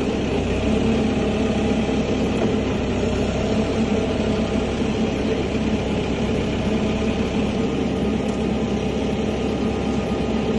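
Engine of a compact construction machine (a small loader or excavator) running steadily at idle, a constant even hum.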